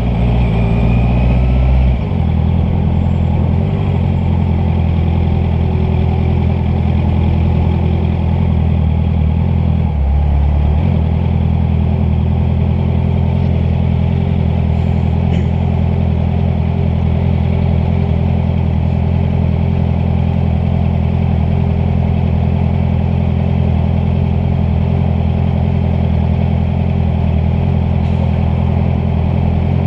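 Honda CBR650F's inline-four engine running steadily under way, its note shifting briefly about two seconds in and again around ten seconds in.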